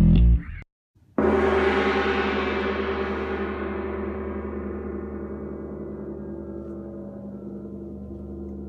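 The band's music cuts off about half a second in. After a brief silence a Wuhan gong is struck once and rings on, its many tones slowly dying away.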